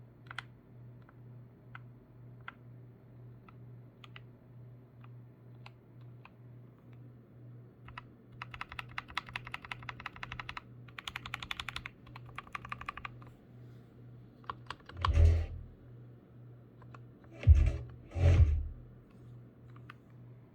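Keys on a Dark Project KD87a mechanical keyboard with Gateron switches being pressed: single scattered key clicks at first, then a burst of fast typing about halfway through. Near the end come three louder, heavier clacks.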